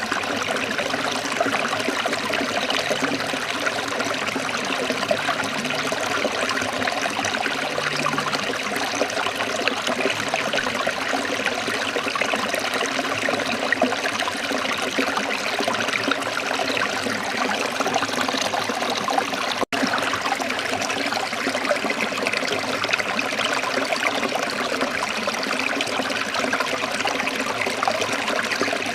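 Running water trickling and flowing steadily, with a split-second dropout about two-thirds of the way through.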